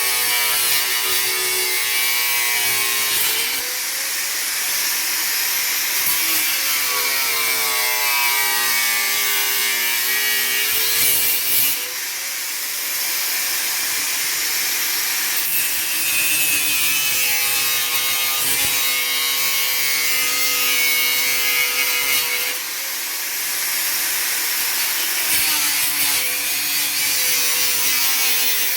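Angle grinder with a cutting blade running while it cuts through plastic, its motor pitch sagging and recovering repeatedly as the blade is loaded and eased off.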